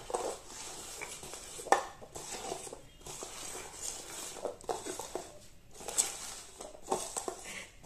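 Paper cups being slid and shuffled around on a glass tabletop, a scatter of light scrapes and taps, with one sharper knock a couple of seconds in.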